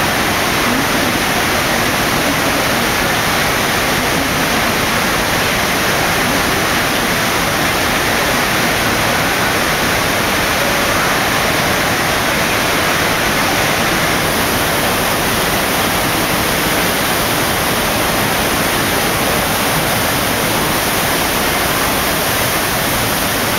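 Steady rush of pumped water pouring across a FlowRider artificial sheet wave.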